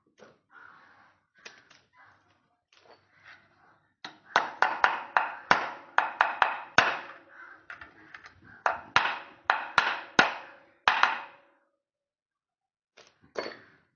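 Repeated sharp metallic knocks and clanks of tools against bicycle parts, each with a short ring. They come in a quick, uneven run of well over a dozen strikes from about four seconds in, stopping about eleven seconds in; before that there are only faint handling sounds.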